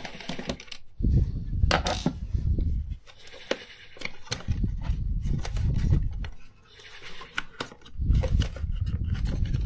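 Plastic housing of a Bosch Unlimited HighPower vacuum brush head being handled and turned over during disassembly: scattered sharp plastic clicks and rubbing, with several low bumps as it is moved about on the wooden table.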